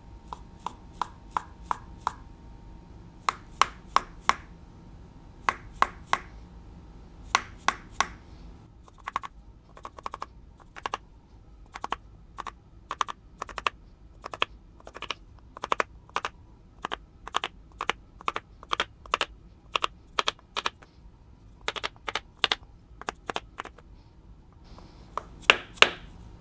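Many light, sharp taps of a mallet on a wooden block, driving a crankshaft rear main seal into its bore in the engine block. The taps come in short groups of two to four, with a longer run of about two a second through the middle.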